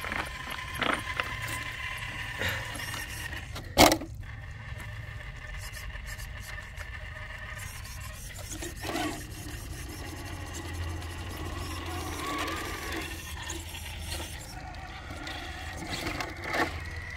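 Scale RC rock crawlers (a straight-axle Axial Capra and a Vanquish GroundFox) crawling over boulders: their electric drivetrains whine under load while the tyres scrape and rub on the rock. There is one sharp knock a little before four seconds in.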